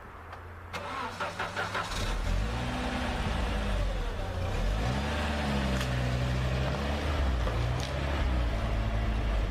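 A vehicle engine cranks for about a second, then catches and runs, its revs rising and falling.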